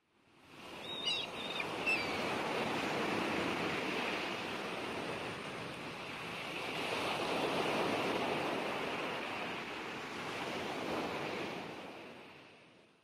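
Ocean surf washing in waves, swelling and easing back a few times; it fades in at the start and fades out near the end. A couple of short high chirps sound about a second or two in.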